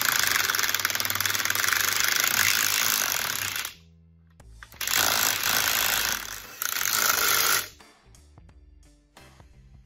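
Cordless impact wrench hammering lock nuts down onto the backing-plate bolts at the end of a rear axle housing. One long run of about three and a half seconds, then two shorter bursts a second or so later.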